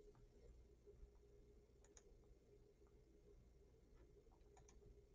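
Near silence with a few faint computer mouse clicks, each a quick double tick of button press and release, about two seconds in and again near the end.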